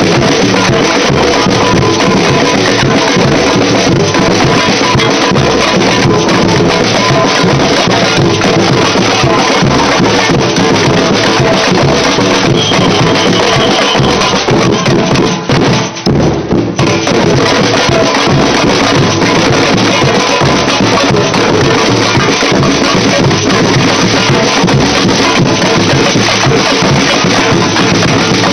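Samba band drumming, loud and close, a dense, driving percussion rhythm. About halfway through the sound briefly drops out and thins, a camera recording glitch.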